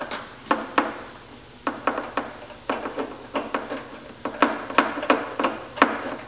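Hand ratchet clicking in short strokes, a few clicks at a time several times a second, as a bolt is run in to fasten a battery ground lead to the motorcycle frame.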